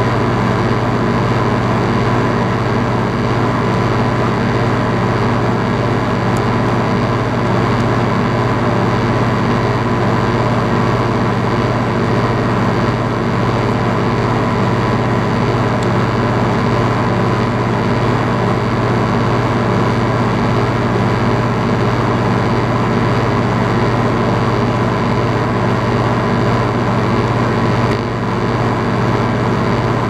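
Outdoor central air conditioner condensing unit running steadily: the compressor's hum under the rush of the condenser fan.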